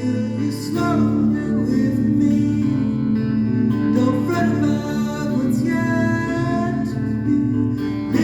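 Acoustic guitar song with a voice singing over the playing.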